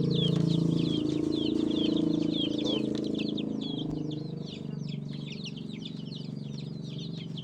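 A pen of young chickens peeping and chirping non-stop in quick, high calls, birds just recovered from infectious coryza (snot). Underneath runs a lower steady drone that is loudest for the first three seconds or so, then eases off.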